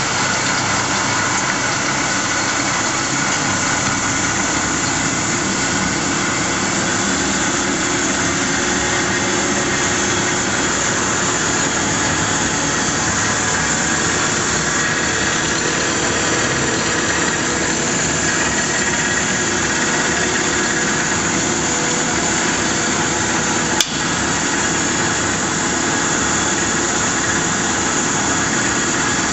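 Powermatic 45 wood lathe running under its 3/4 hp three-phase motor and variable-speed belt drive, a steady mechanical whir with a squealing edge. There is one sharp click late on. The owner thinks the drive belt is worn.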